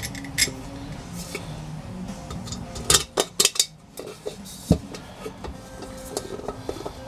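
Small metal parts and hardware clinking and tapping against each other during hand assembly of a steel headlight bucket: separate sharp clicks, with a quick run of four about three seconds in.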